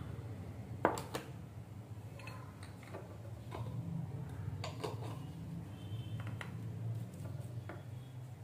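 A few scattered light clicks and taps, the loudest a quick pair about a second in, over a steady low hum.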